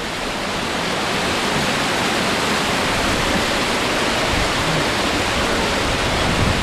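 Whitewater of a small river cascade pouring over boulders close to the microphone: a steady, even rush.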